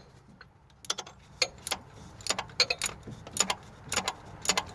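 Ratchet wrench clicking in short strokes while loosening a 13 mm water pump bolt on a 2.3-litre Mustang engine: sharp metallic clicks, a few a second and unevenly spaced, starting about a second in.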